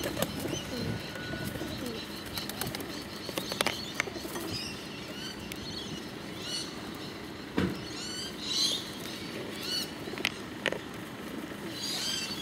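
Feral rock pigeons cooing and flapping their wings as they fly onto and around a bench, with several sharp claps and bursts of high chirping in the second half.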